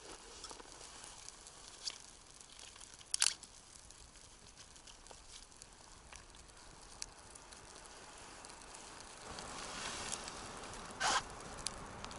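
A freshly lit campfire of dry twigs crackling as it catches, with scattered small pops and two louder sharp snaps, about three seconds in and near the end. A soft rushing noise builds from about nine seconds.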